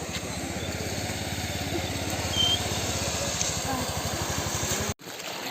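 A small engine running steadily with a fast, even pulse, cut off abruptly near the end.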